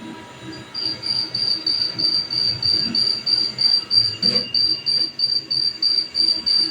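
High-pitched electronic beeper sounding in a steady rapid series, about three beeps a second, starting just under a second in, with a single knock about four seconds in.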